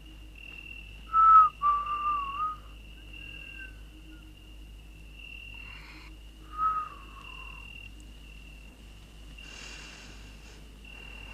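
A person whistling a few short, wavering notes, about a second in and again near seven seconds, over a steady high crickets' chirring on a summer night.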